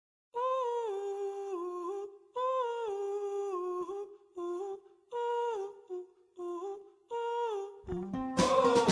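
Background music: a song opening with a solo wordless voice humming a slow, stepwise melody in phrases of a second or two. Near the end the full band comes in with drums.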